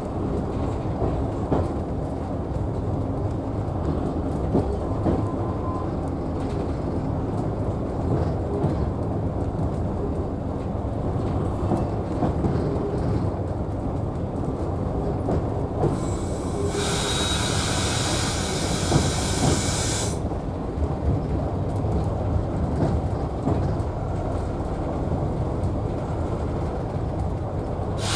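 Class 117 diesel multiple unit heard from the driver's cab: steady low rumble of its diesel engines and wheels as the train moves slowly along the platform. A loud hiss lasts about three seconds, a little past halfway.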